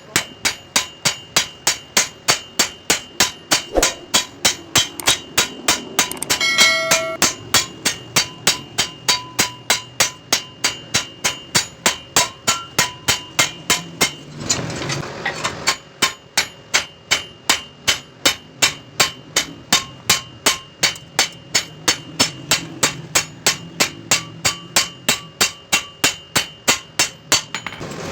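Hand hammer beating a steel chaff cutter blade, steady blows about two a second with a metallic ring, drawing the edge out to sharpen it. The blows pause briefly about halfway through.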